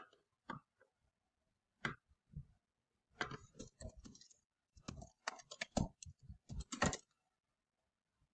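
Computer keyboard keys clicking as someone types: a few single keystrokes, then two quick runs of typing from about three seconds in until near the end.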